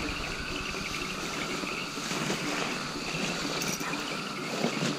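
Steady outdoor night-time background noise, a hiss like wind, with faint continuous insect-like chirping.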